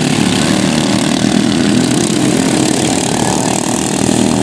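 Small engines of several racing ride-on lawn mowers running hard together, a loud steady drone of overlapping engine notes.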